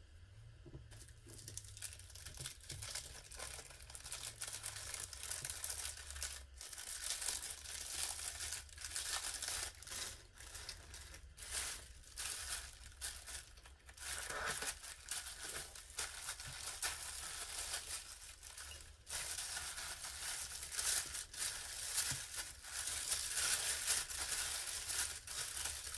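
Thin plastic packaging crinkling and rustling as it is handled and unfolded: a dense run of crackles that starts about a second in and keeps going.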